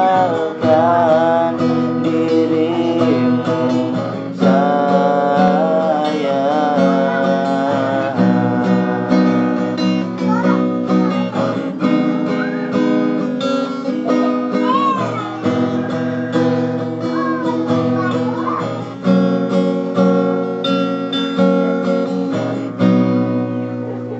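A man singing while strumming an acoustic guitar. The playing and singing stop shortly before the end.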